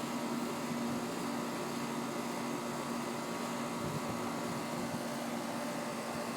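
Newly installed Trane XB13 4-ton heat pump running steadily, a compressor hum with steady tones under the hiss of its fan, a few minutes after first start-up while its refrigerant charge settles.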